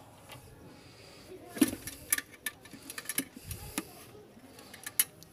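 Scattered clicks and light knocks of hands working loose the air filter housing on a Maruti 800 engine, the sharpest about one and a half seconds in and another near the end.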